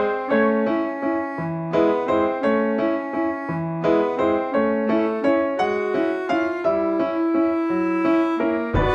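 Background music: a gentle piano melody played in a steady rhythm.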